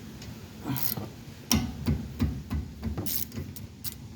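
Irregular metal clicks and knocks of hand tools and brake parts being handled, with a low rumble underneath.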